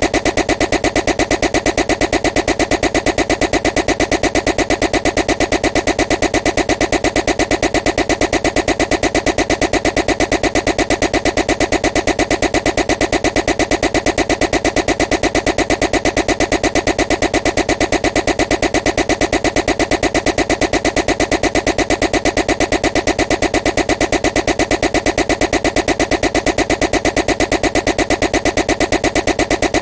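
A loud, harsh buzzing noise made of rapid, evenly spaced pulses, many a second, repeating without change as a looped annoying-noise track.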